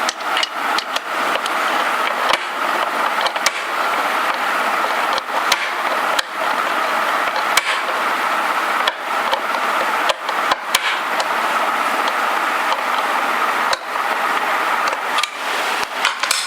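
A screw being driven in to tighten a pressure cooker's handle, with scattered small clicks and knocks of the screwdriver and handle parts. A steady rushing background noise runs underneath.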